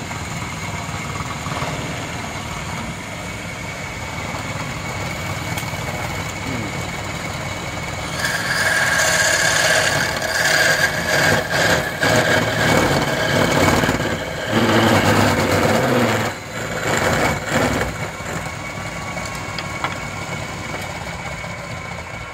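Wood lathe running with a steady hum. About eight seconds in, sanding against the spinning wooden workpiece adds a loud, rough rasp with a high whine, lasting about ten seconds before the lathe's hum is left alone again.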